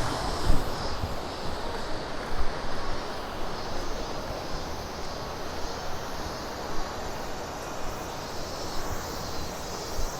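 Steady rush of a fast-flowing river below an iron suspension bridge, with a few light knocks of footsteps on the bridge deck.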